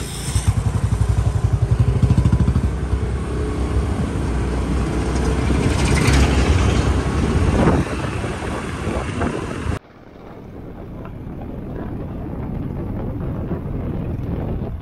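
A scooter's engine pulls away and accelerates, with a fast pulsing beat at first. About ten seconds in, it cuts abruptly to the steadier, rising rush of a Royal Enfield Thunderbird motorcycle cruising down the road.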